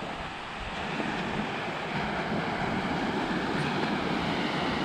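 Small waves breaking and washing up the shallow sandy shore: a steady rushing of surf.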